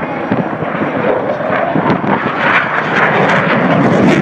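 Jet aircraft passing over, a dense roar that grows steadily louder as it approaches.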